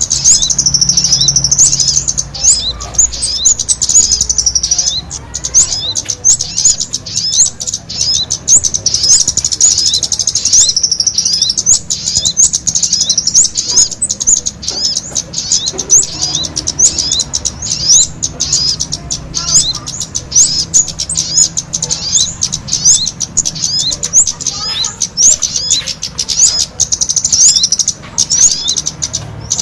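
Bird-lure recording of small birds calling, a mix of sogon calls and noisy kemade chatter. It is an unbroken stream of high, thin chirps and quick sweeps, several a second.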